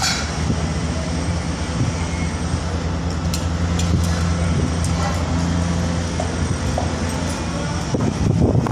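Steady low drone of construction-site machinery, with a few faint clicks and knocks over it, growing a little louder near the end.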